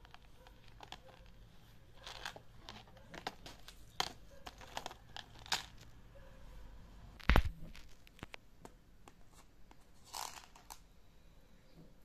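Plastic wrap crinkling, with scattered light clicks as rhinestone jewellery is handled in a clear plastic box, and one sharp, louder knock a little past halfway.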